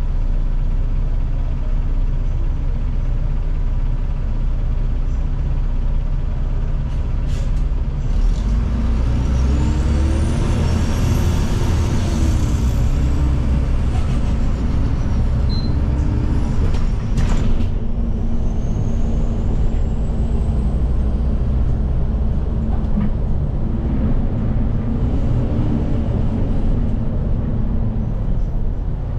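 Interior of a Seoul city bus on the move, heard from the rear seat: a steady low drivetrain rumble with a whine that rises and falls as the bus speeds up and slows down, and a couple of short hisses.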